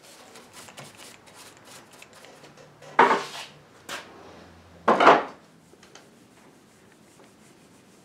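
A small brush scrubbing beeswax oil polish into a turned mahogany table leg in quick, light strokes, then two loud wooden clunks about two seconds apart as the table is handled, with a faint low rumble between them.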